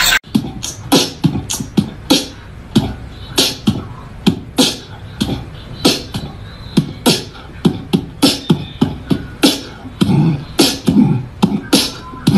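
Beatboxing: a steady beat of mouth-made kick and snare-like hits, starting abruptly just after a cut.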